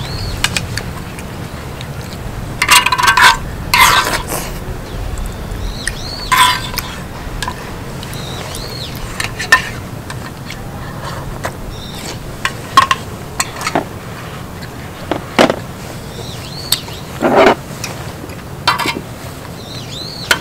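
Eating sounds: a string of short slurps and chewing noises with spoon and dish clinks, over a steady low rumble.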